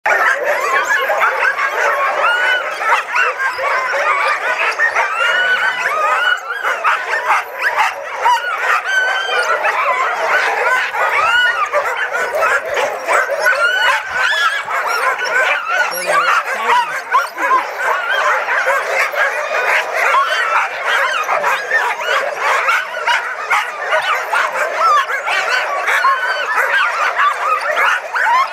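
A large pack of excited sled dogs in harness barking and yipping all at once, a continuous, dense chorus of overlapping high calls with no let-up.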